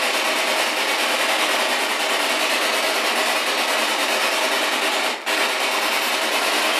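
Spirit box, a radio scanning rapidly through stations, giving out a steady wash of static, with a brief drop about five seconds in.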